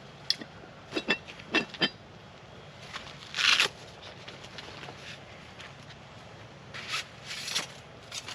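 Camp gear being handled and moved: a run of sharp knocks and clicks, some with a brief light ring, a short scrape about three and a half seconds in, and two softer rustling scrapes near the end.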